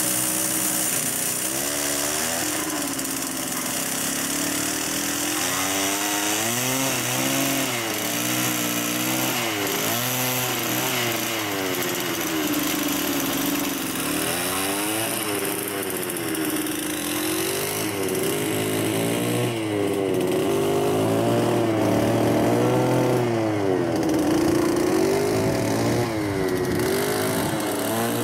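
Small petrol engine of a lure-coursing machine, its revs rising and falling again and again, every second or two, as the lure's speed is varied.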